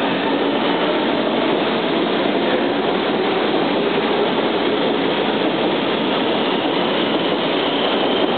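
SMRT C151 metro train pulling out of the station and running past the platform, its wheels and motors making a steady running noise as the cars go by.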